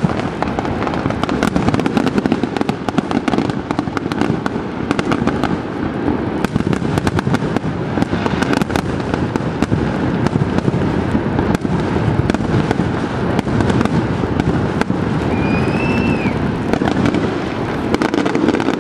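Fireworks display: dense, rapid crackling and popping of bursting shells over a steady low rush of noise, with one short whistle that rises and then falls about two thirds of the way through.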